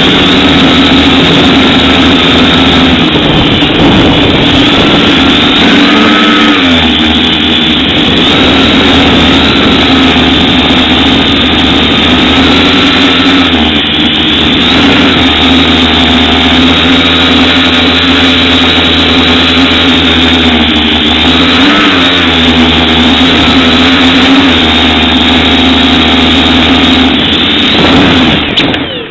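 FPV quadcopter's electric motors and propellers running in flight: a loud, steady buzzing whine whose pitch dips and comes back up a few times as the throttle changes, then falls away right at the end as the throttle is cut.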